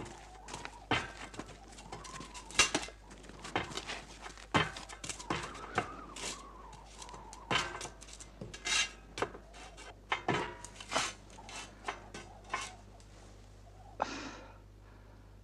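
Irregular sharp metallic clanks and knocks on the steel of a T-34 tank as the crew climb onto the hull and into the turret, some two dozen strikes, with a longer rasping clatter near the end.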